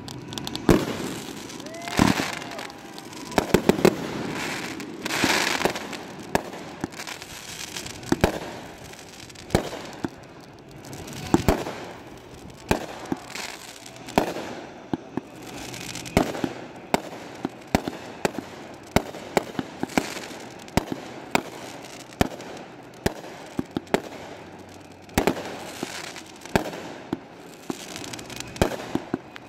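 Fireworks display going off: a rapid run of sharp bangs, often several a second, mixed with crackling and echoing booms.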